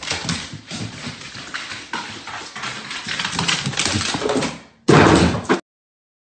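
A dog's paws and claws clattering quickly down hardwood stairs. Just before five seconds in comes a short, loud scuffling burst that cuts off suddenly.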